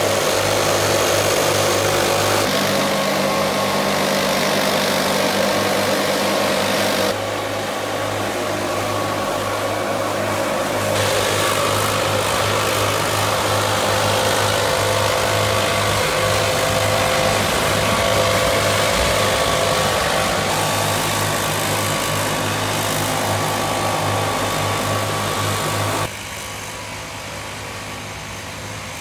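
Several backpack leaf blowers running steadily, their small two-stroke engines droning under a rush of air as they blow fallen leaves off tram tracks. Near the end the sound drops suddenly to a quieter background.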